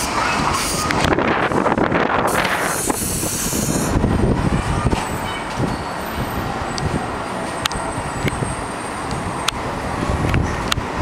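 R62A subway train pulling in alongside the platform with a steady rumble of wheels on rails and a hiss in the first few seconds. In the second half come sharp clicks about once a second as the wheels run over rail joints.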